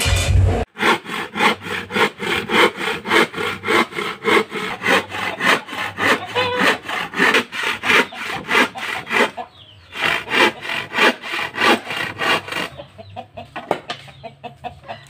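Rapid back-and-forth strokes of a hand tool on a plywood sheet, about four a second, with a short pause near the middle and fainter strokes near the end.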